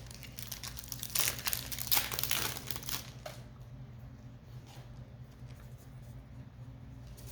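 Foil wrapper of a Pokémon trading card booster pack crinkling as it is torn open, loudest in the first three seconds, then quieter crackling as it is handled.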